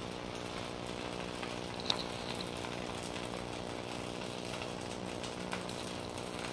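Maida dosa frying in oil on a hot iron tawa, a steady sizzle, over a constant motor-like hum. A single small click about two seconds in.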